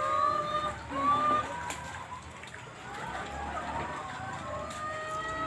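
Faint background voices of people talking, with light sloshing of pond water.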